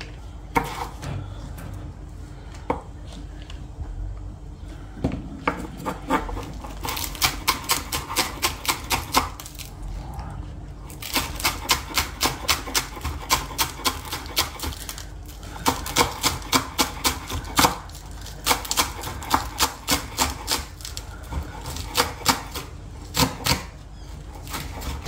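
Chef's knife chopping spring onion on a wooden cutting board: sharp knocks of the blade on the board, a few scattered strikes at first, then quick runs of about four strokes a second with short pauses.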